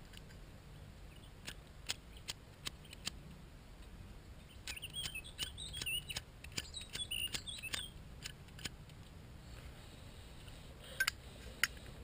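Zippo lighter's flint wheel struck again and again against steel wool packed in place of the cotton wadding, sparking the dry wool to light it without fuel: short, sharp scratchy clicks, a dense run of them in the middle with some high squeaky scraping, and two louder strikes near the end.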